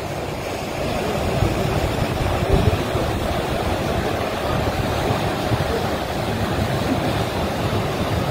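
Floodwater of a swollen river rushing steadily, an even, continuous wash of water noise.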